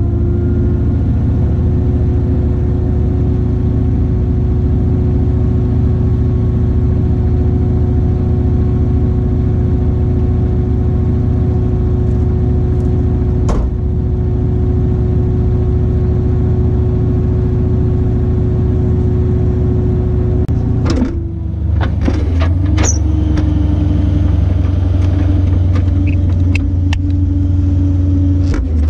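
Tow truck engine running steadily at raised revs, with a steady whine over the drone. About 21 seconds in it dips briefly and picks back up a little lower, and several sharp metallic clinks follow.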